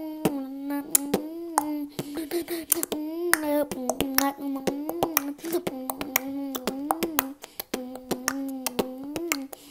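Beatboxing: a dense run of sharp clicks and snare-like hits over a steady hummed note that keeps bending briefly upward. The hum drops out for a moment about seven seconds in.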